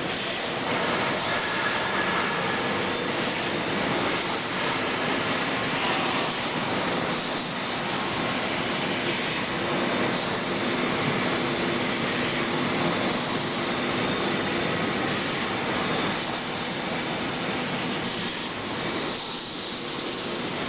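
Vertical ultrasonic washing machine running: a steady mechanical noise with a few faint steady tones, unchanging throughout.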